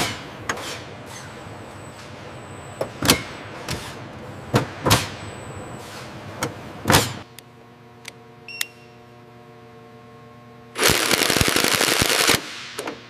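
Factory assembly sounds: a string of sharp metallic clanks and knocks with short ringing tails, then a steady machine hum with a couple of short beeps. Near the end comes a loud burst of rushing noise lasting about a second and a half.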